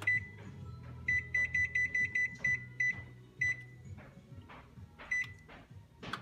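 Electronic oven control panel beeping as its buttons are pressed to set the preheat. There is a single beep, then a quick run of about nine beeps as the setting is stepped, then a longer beep and one more single beep.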